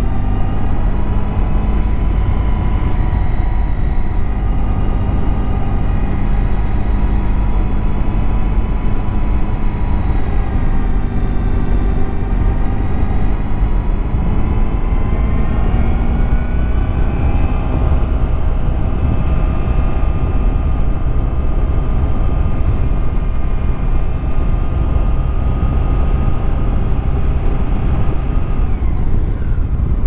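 Honda ST1100's V4 engine running under way at low speed, its pitch drifting gently up and down with the throttle, over heavy wind rush. Near the end the pitch dips and then climbs again.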